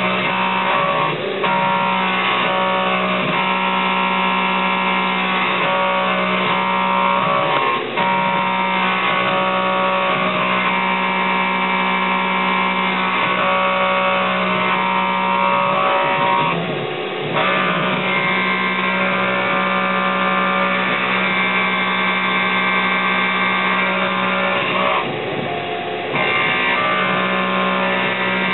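Tormach CNC mill cutting aluminium with an end mill under flood coolant: a steady multi-toned whine from the spindle and cutter, dipping briefly a few times as the tool moves between cuts.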